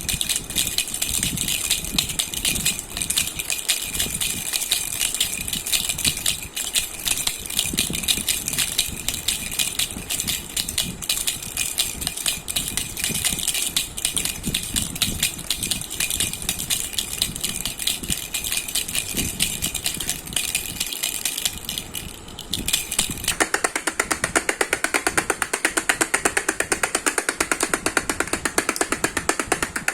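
Baby rattle (jhunjhuna) shaken continuously, a fast, dense jingling rattle. About 23 seconds in it changes to a fuller, very regular rapid rattling.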